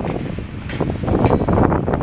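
Covered hopper cars of a freight train rolling past, with steel wheels rumbling and clattering over the rails in repeated knocks, and wind buffeting the microphone.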